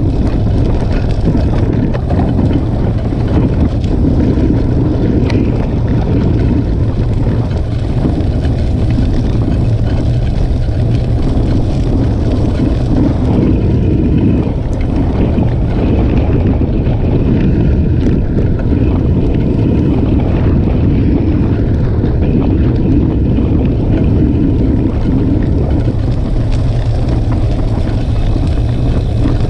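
Steady wind rushing over the microphone of a moving bicycle, with the tyres rolling and crunching over a wet gravel path underneath.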